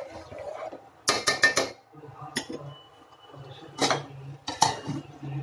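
Metal ladle clinking and scraping against a cooking pot while the chicken gravy is stirred: a quick run of clinks about a second in, then single knocks.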